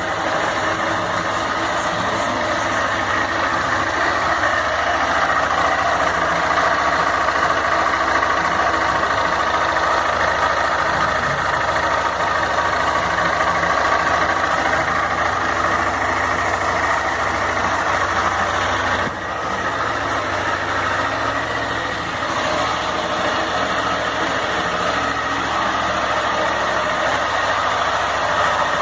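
Honda CG 160 Fan's air-cooled single-cylinder engine idling steadily. This is the engine noise that the owner found different after the break-in, at about 3,735 km.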